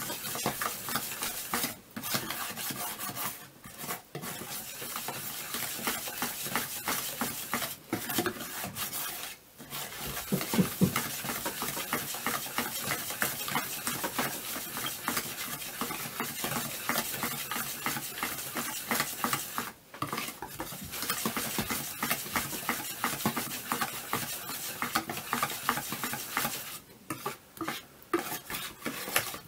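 Wire balloon whisk beating runny sponge-cake batter in a bowl: fast, continuous scraping and clicking of the wires against the bowl, pausing briefly a few times. The flour is being whisked in until no lumps remain.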